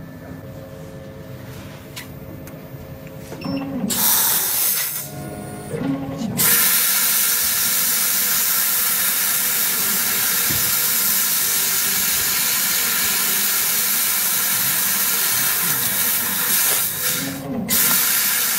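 Laser tube cutting machine's cutting head cutting a round metal tube turned in a rotary chuck: a loud, steady hiss of assist gas blowing through the nozzle starts about four seconds in, breaks off briefly, then resumes and runs on, with a short dip near the end. Before the hiss starts, only a quieter machine hum.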